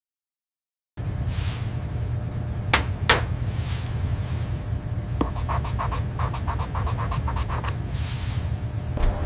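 Factory machinery sound effects: after a second of silence a steady low machine rumble starts, with sweeping whooshes, two sharp knocks close together, and later a rapid run of clicks, about eight a second, for a couple of seconds.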